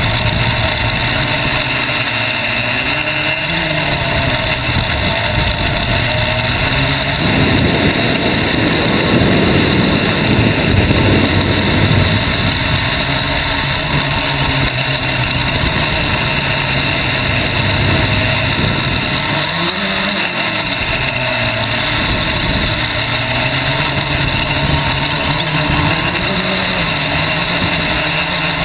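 Quadcopter's four electric motors and propellers whirring, heard from on board, with the pitch shifting as motor speeds change. A rush of wind noise swells for several seconds about a quarter of the way through, which the pilot takes for prop wash as the craft descends through its own disturbed air.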